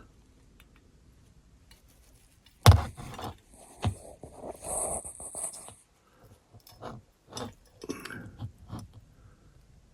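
Small clicks and scraping as a tiny door is pressed into place on a diecast model car body, starting with a sharp click a little under three seconds in, then scattered lighter clicks.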